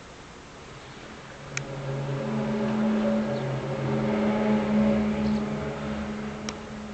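A loud, low droning hum made of several steady tones, swelling up about a second and a half in, strongest in the middle and easing off near the end, with two sharp clicks over it. It is the unexplained city-wide hum reported as loud enough to make windows tremble.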